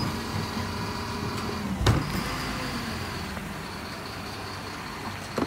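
Mercedes-Benz Econic bin lorry running, with a steady high whine over the engine and one loud bang about two seconds in.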